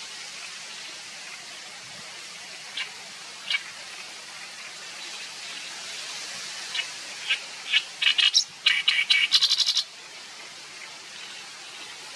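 Oriental reed warbler singing: two single harsh notes, then about three seconds of loud, rapid, grating chatter starting about seven seconds in, over a steady background hiss.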